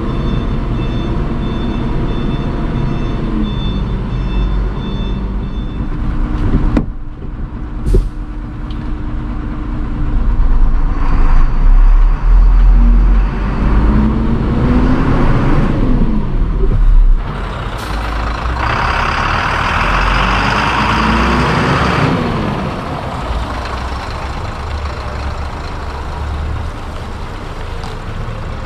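Mitsubishi Fuso Fighter truck's 6M60 diesel engine running, heard from inside the cab. A repeating reverse-gear warning tone sounds over the first few seconds after reverse is selected. Two short sharp hisses come later, and the engine revs up and down as the truck moves.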